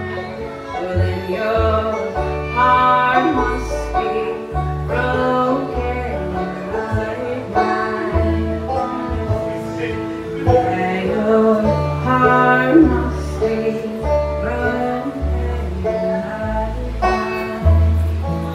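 Live acoustic bluegrass-style band playing: strummed acoustic guitar over plucked upright bass notes, with a woman singing.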